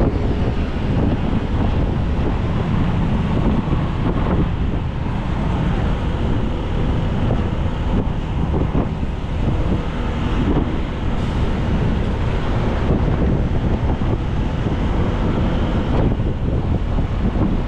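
Wind buffeting the microphone: a steady, loud low rumble and rush that wavers in strength.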